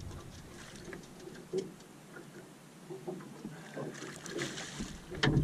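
Brief water splashing about four seconds in as a hooked flathead catfish thrashes at the surface beside the boat, then a single loud knock near the end as it is netted.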